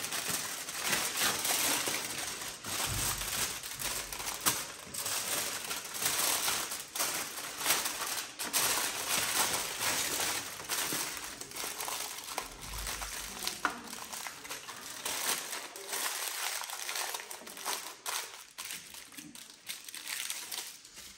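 Aluminium foil crinkling and crackling as hands fold and press it around a stuffed fish to make a parcel. It is a dense run of crisp rustles that thins out near the end.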